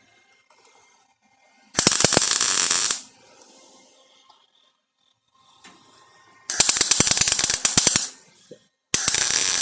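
MIG welder tack-welding thin sheet-metal patch panels, three bursts of rapid, even crackle: one of just over a second about two seconds in, a second of about a second and a half, and a third starting near the end that is still going.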